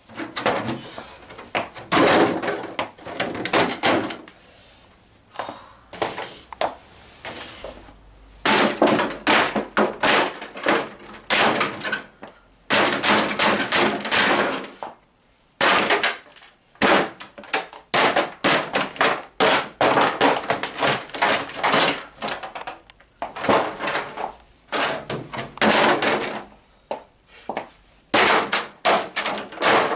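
A 1/5-scale radio-controlled car being smashed: repeated hard blows land in rapid bursts, with short pauses between them, knocking and cracking its plastic body and parts.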